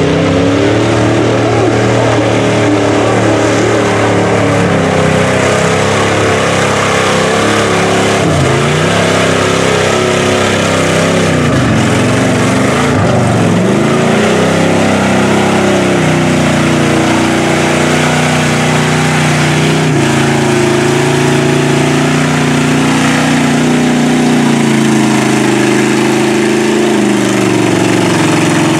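Engines of lifted Chevrolet pickup trucks revving hard in a mud bog, the pitch climbing and dropping again and again as the tyres dig through the mud.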